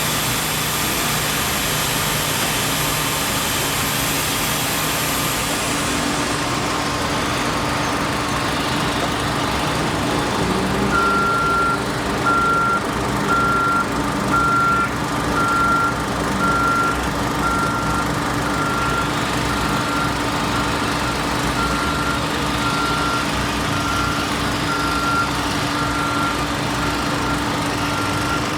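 Heavy vehicle or construction machine engine running steadily. About a third of the way in its backup alarm starts, a single-tone beep repeating about once a second: the machine is reversing.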